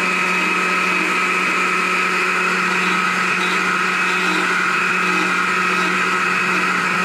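Carving chainsaw with a narrow carving bar running at a steady high speed, trimming and cleaning up a small carved wooden heart; the engine note holds one even pitch throughout.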